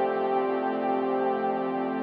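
Background music: sustained synthesizer or electric-piano chords held steadily.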